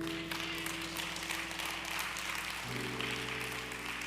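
Held instrumental chords playing softly, changing chord about two-thirds of the way through, under a congregation's applause and clapping.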